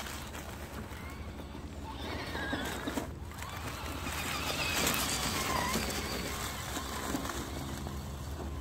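Radio-controlled crawler truck's electric motor and gears whining as it climbs a dirt slope, the pitch wavering up and down with the throttle. Loudest in the middle.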